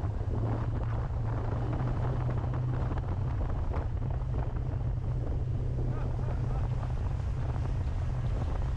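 Small motorboat running steadily under way: the even drone of its motor, with wind buffeting the microphone and water splashing along the hull.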